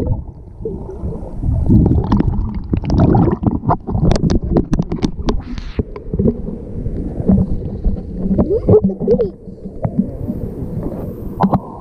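Muffled underwater gurgling and sloshing of shallow sea water around a submerged camera, with an uneven low rumble and many sharp knocks and splashes as the camera is moved through the water and brought up to the surface.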